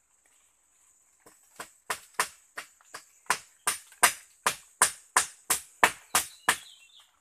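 Repeated hard blows on the wooden poles of a pole-built cage trap: about fifteen strikes, roughly three a second, getting louder. They start about a second in and stop a little after six seconds.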